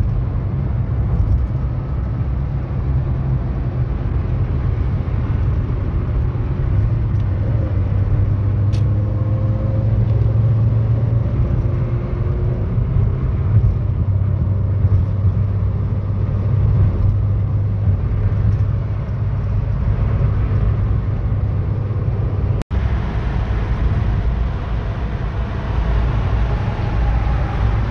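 Cabin noise of a 2008 VW Saveiro G4 pickup with the 1.6 AP petrol engine cruising at highway speed: a steady low engine drone mixed with road rumble. The sound cuts out for an instant about three-quarters of the way through.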